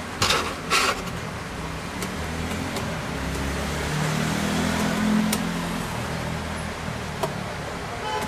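Two short scraping bursts of handling noise near the start, and a few light metallic clicks as a thin metal keyboard shield plate is picked up and laid in place. Under them, a low motor-vehicle engine hum swells about halfway through and then eases off, as a vehicle passes.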